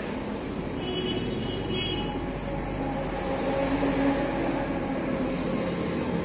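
Steady low rumble and hiss of background noise, like passing road traffic.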